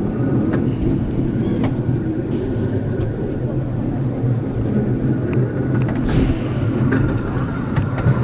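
Roller coaster train rolling slowly along the track after the ride, its wheels making a steady rumble with occasional clicks and knocks.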